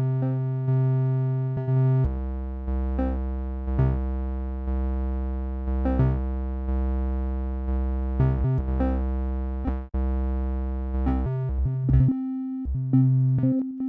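Computer-generated synthesizer music made of sustained, tone-rich notes that restart in a steady pulse about once a second. A low bass tone joins about two seconds in and drops out again near the end.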